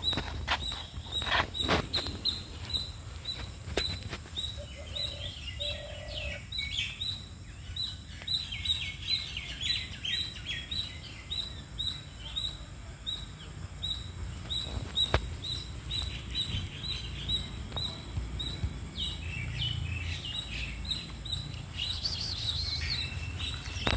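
Birds chirping: a short high note repeated a couple of times a second, with spells of busier twittering in the first half and again near the end.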